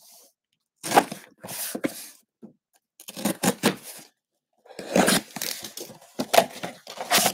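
A taped cardboard box being opened by hand: packing tape ripping and cardboard flaps scraping in a series of short rasps, busiest in the second half.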